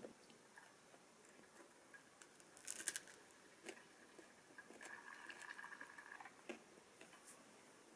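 Near silence: room tone with a few faint clicks and taps, the loudest about three seconds in, and a faint steady high tone for about a second and a half in the middle.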